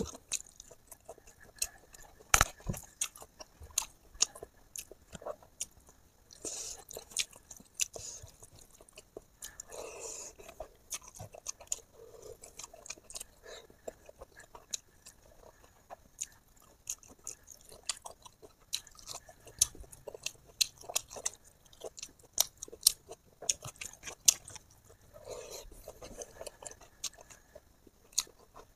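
A person eating pork close to the microphone: chewing and mouth noises made of an irregular run of short smacks and clicks, with a louder click about two seconds in.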